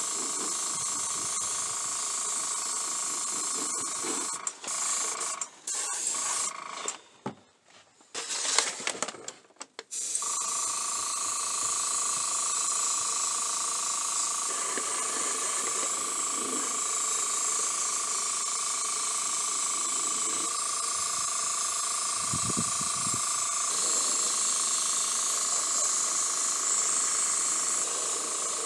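Airbrush spraying water-based paint: a steady hiss with a faint steady tone underneath. It breaks off a few times a few seconds in, stops for about three seconds, then runs on steadily.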